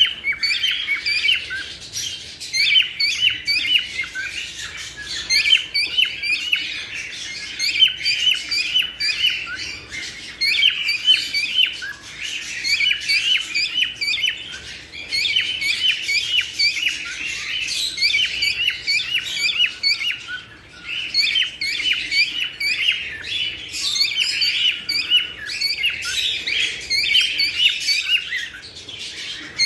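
A flock of cockatiels chirping and whistling continuously, many short calls overlapping.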